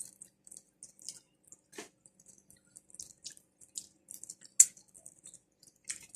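Wet eating sounds from a creamy shrimp and crab meal: scattered short smacks and clicks, the loudest one about two-thirds of the way in.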